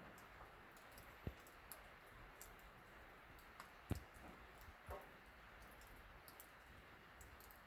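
Rain on a metal barn roof, faint: a steady light hiss with many small scattered ticks of drops. A few louder single knocks come through, about a second in, near four seconds and near five seconds.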